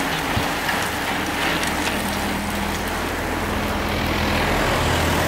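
A bunch of road racing cyclists riding past, with tyre and wind noise, over a steady low hum of an engine running nearby.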